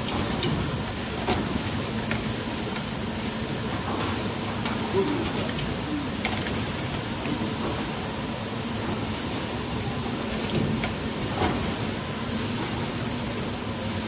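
Automatic screen printing and hot stamping machinery running: a steady mechanical hum and hiss with a high whine, broken by a few light clicks.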